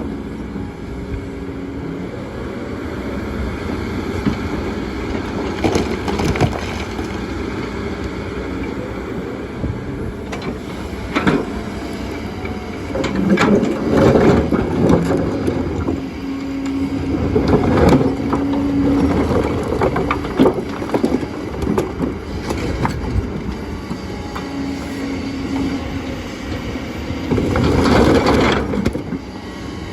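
Kobelco excavator at work on stones: its engine runs steadily under several louder spells of whining, grinding and knocking as rock is scraped and moved.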